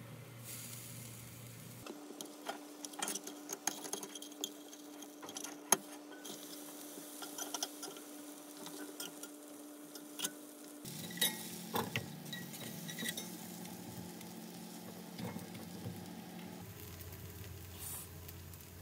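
Quesadilla frying in a nonstick pan with a faint sizzle, while a spatula scrapes and taps against the pan in irregular clicks and knocks.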